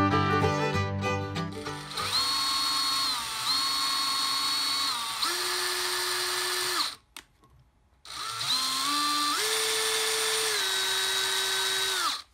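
Fiddle-led background music for the first two seconds, then a cordless drill running a small twist bit into a metal plate. Its motor whine steps up and down in pitch as the speed changes. It drills in two runs with a pause of about a second between them.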